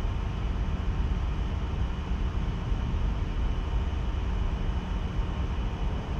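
Steady low background rumble and hiss with a faint constant hum, unchanging throughout: room noise picked up by the microphone.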